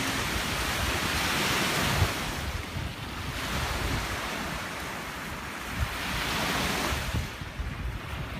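Ocean surf breaking and washing up on a beach, swelling and fading wave by wave, with wind rumbling on the microphone.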